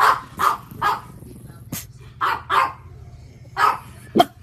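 Pug barking: short barks in quick groups of three, then two, then one or two more.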